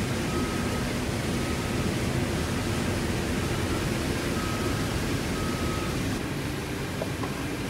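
Steady cockpit noise of a C-17 Globemaster III with its four turbofan engines running on the ground, an even low rumble with hiss over it. It drops slightly in level about six seconds in.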